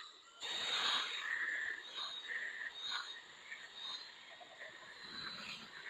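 Cutting compound being rubbed over a plastic headlight lens, giving a series of short squeaks and scrubbing strokes about twice a second.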